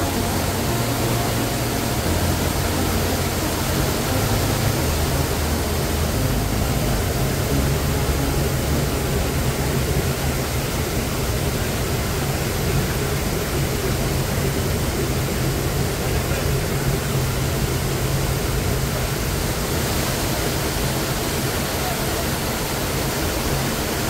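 A small waterfall pouring over low rock ledges into a pool, a steady rushing of water, with water splashing down onto a bather sitting under the fall.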